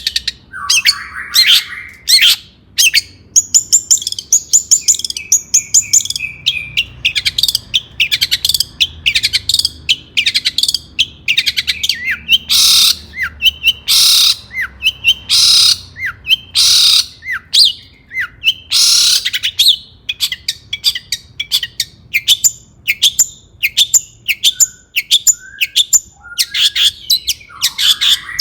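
Long-tailed shrike singing without pause: a fast, varied stream of sharp chirps and trills, with harsher, scratchy notes in the middle.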